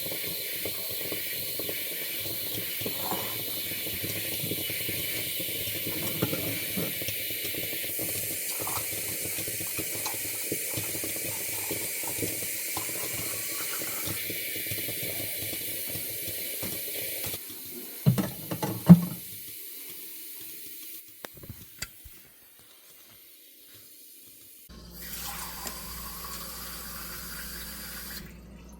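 Water running steadily from a tap for about seventeen seconds, then two sharp knocks, and later a different steady sound with a low hum.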